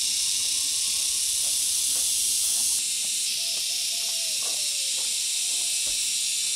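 Steady high-pitched drone of an insect chorus, with a slight drop in level about three seconds in.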